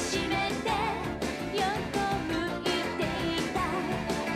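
Upbeat pop commercial song with a steady beat and a singing voice.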